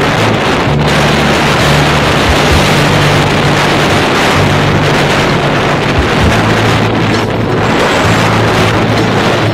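Loud, steady wind rush on the microphone of a moving vehicle in traffic, with a low hum underneath.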